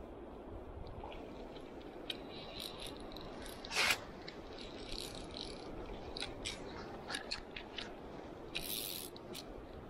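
Orvis fly reel clicking in short, irregular runs over the steady rush of river riffles, with a brief loud rustle of a jacket sleeve against the camera about four seconds in.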